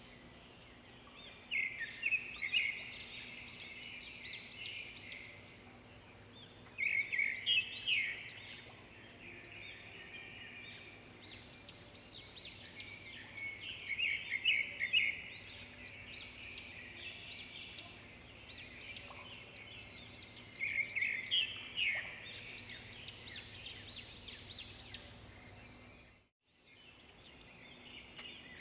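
Several small birds chirping and twittering, with quick overlapping calls in bursts of a few seconds. The sound cuts out completely for a moment near the end.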